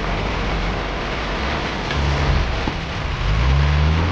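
Off-road 4x4's engine running under load, rising in pitch about three seconds in as it revs, over a steady hiss.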